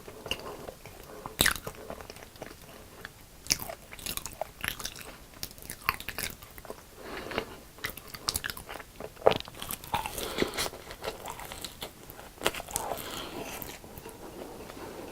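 Close-miked crunchy bites and chewing of crisp deep-fried food, with sharp crackling crunches every second or two between softer chewing.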